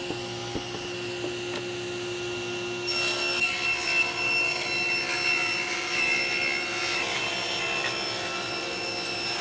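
Table saw running with a single blade, cutting a rabbet in a solid walnut board, its motor a steady hum throughout. From about three seconds in, the cutting gets louder and harsher as the board, stood upright in a jig, is fed over the blade for the second pass.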